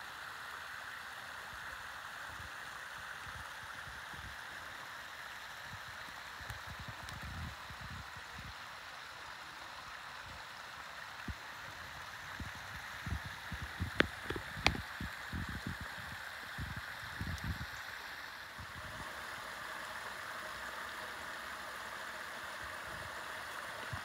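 Steady rushing and splashing of a shallow creek spilling over small rock-ledge waterfalls. Several low thumps come through the middle, with two sharp clicks about halfway through.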